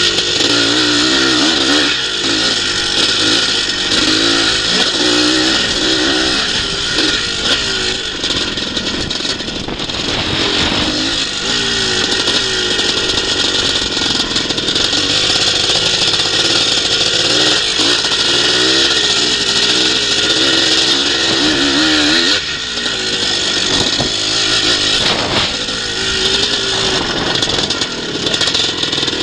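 Engine of a twinshock-era motocross bike heard from on board, revving up and down as the throttle is worked, with a strong rush of wind over the microphone. The revs drop sharply a few times where the throttle is shut, then pick up again.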